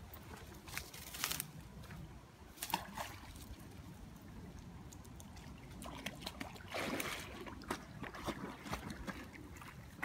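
Fast-flowing river running, with scattered knocks and rustles and a swell of splashing about seven seconds in as a Jack Russell terrier wades into the water.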